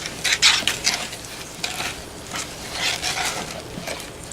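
Wet squishing and slapping of borax-and-glue slime being swished around in a bowl to soak up the leftover water, in irregular strokes.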